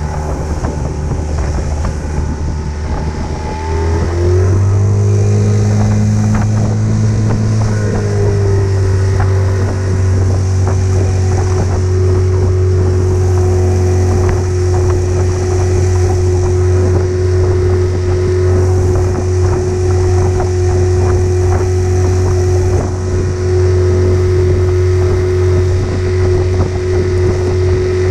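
Small outboard motor driving an inflatable boat along. About four seconds in it speeds up, its pitch rising, then it runs steadily at the higher speed, with wind on the microphone and the rush of the wake.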